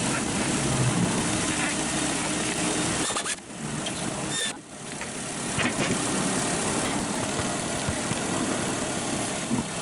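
Daihatsu Mira Van engine running on a test drive, with steady engine and road noise. The sound drops away briefly twice, about three and a half and four and a half seconds in.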